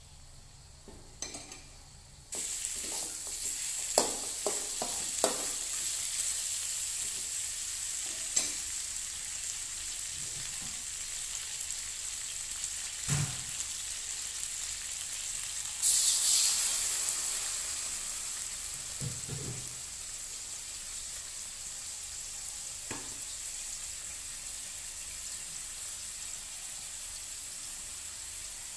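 Chicken pieces sizzling in a dark sauce in an aluminium wok, with a metal spatula scraping and knocking against the pan now and then. The sizzling starts a couple of seconds in. About halfway through it flares suddenly louder as a little water is poured in, then settles back to a steady sizzle.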